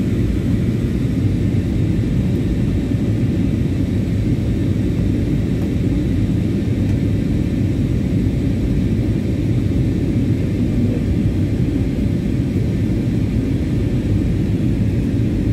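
Steady cabin noise inside an Airbus A320-family airliner in flight: a constant low rumble of the engines and the air rushing past the fuselage.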